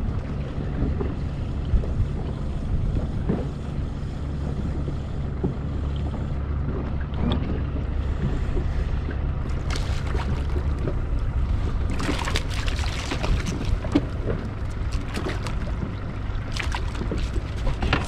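Small fishing boat at sea: a steady low motor hum with wind and water noise, the hum easing about ten seconds in. After that come scattered knocks and a clatter of small hard impacts lasting a couple of seconds.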